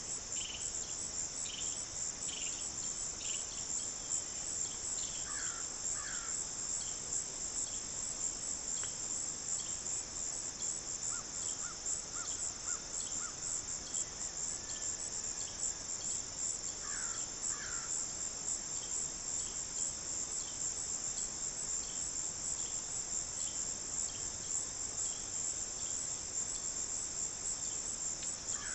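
Insect chorus of crickets: a steady, high-pitched trilling with no break, with a few faint short chirps from another animal about five and seventeen seconds in.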